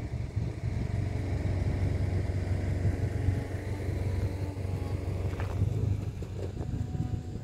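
An engine running steadily with a low hum, fading out near the end.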